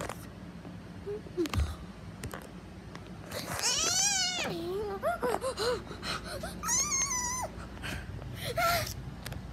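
High-pitched wailing and whimpering cries: one long wavering wail, then a run of short rising-and-falling whimpers and a held cry near the end.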